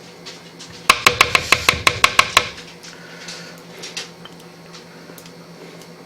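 A kitchen utensil tapping quickly against a mixing bowl, about nine or ten sharp clicks at roughly six a second starting about a second in, then a few faint ticks.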